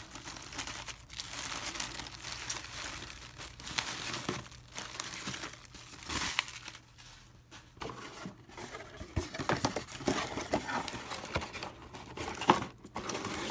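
Bubble wrap and clear plastic bags of resin model parts crinkling and rustling as they are handled, with a sharper knock near the end.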